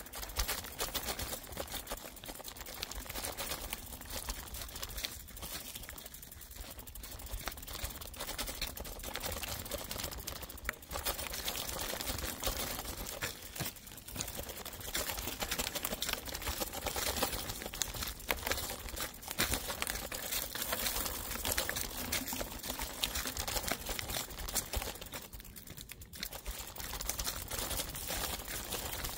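Mountain bike rolling fast down a dirt forest trail: knobby tyres crackling over dry fallen leaves, with a constant run of small clicks and rattles.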